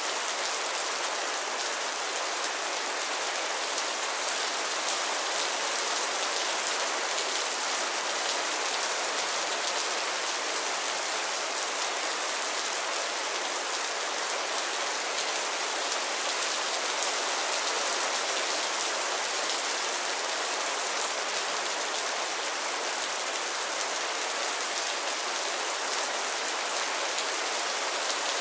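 Mild rain falling steadily on a roof: an even, dense patter of drops with no breaks or changes.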